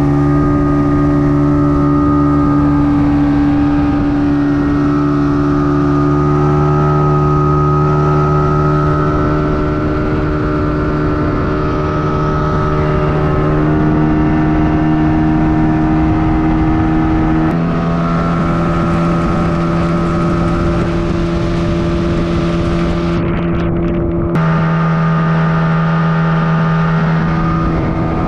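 Boat engine running steadily as the boat travels along the river, a constant hum with a hiss over it; its pitch shifts slightly twice in the second half.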